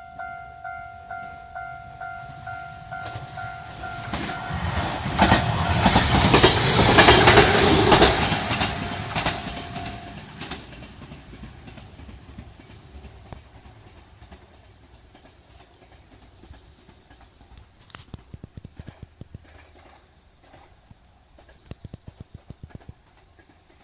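Japanese level-crossing warning bell ringing about twice a second while a train passes loudly, its wheels clacking. The bell stops about ten seconds in as the train fades away. Later come two short runs of quick sharp clicks.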